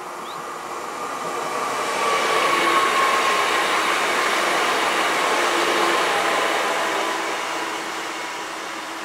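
Siemens Vectron electric locomotive hauling loaded coal wagons, rolling slowly: a steady fan-like blower noise with several whining tones on top, drifting slightly lower in pitch. It swells about two seconds in and eases off near the end.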